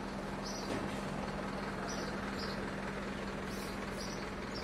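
Steady low mechanical hum, like an engine or machine idling, over a constant background noise, with a few short, faint high chirps.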